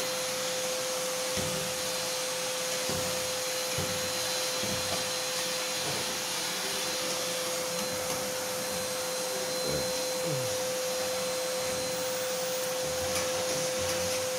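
Vacuum cleaner running steadily with a constant motor whine over a rushing hiss, its hose nozzle worked along a window grille, with a few brief low bumps.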